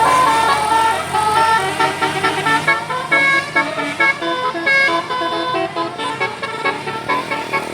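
Bus telolet horn of the Basuri type, a multi-tone musical air horn, playing a fast tune of short notes that hop rapidly from pitch to pitch.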